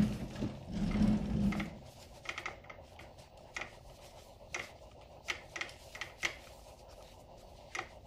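Hands and a cloth shop towel rubbing over a Brembo brake caliper, with a loud rustle and bump in the first second and a half, then scattered light clicks of metal as the caliper is turned and wiped.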